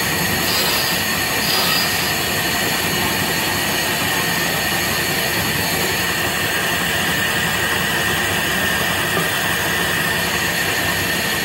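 Bandsaw running steadily and cutting plywood, a constant machine noise with a steady high whine over it.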